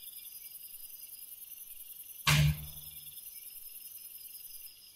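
Quiet, near-still background with a faint steady high chirring, broken about two seconds in by a single short thump with a brief low hum trailing after it.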